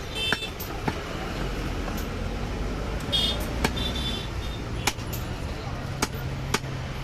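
Butcher's cleaver striking meat and bone on a chopping block, about six sharp, irregularly spaced knocks, over steady market street noise with traffic and distant voices.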